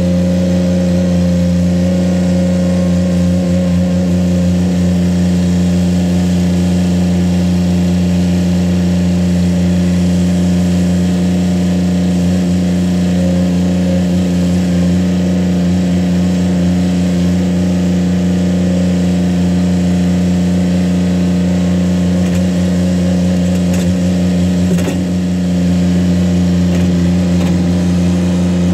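Ditch Witch SK600 tracked mini skid steer's engine running at a steady, even pitch while the machine drives and works its loader arms in the dirt, with a brief dip in loudness near the end.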